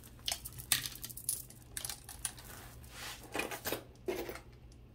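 Beaded costume-jewelry necklaces clicking and rattling against each other and the table as they are handled and laid down: a string of irregular clicks, several in quick succession about three and a half seconds in.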